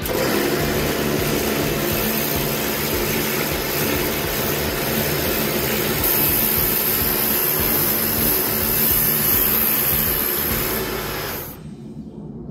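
Pressure washer running, its jet spraying steadily onto a metal calf trough, with a motor hum under the hiss of the water. Near the end the spray cuts off suddenly and only a lower hum is left.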